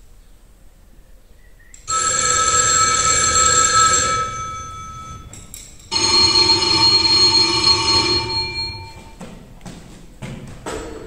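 Telephone bell ringing twice, each ring lasting about two and a half seconds and fading out, followed by a few light knocks near the end.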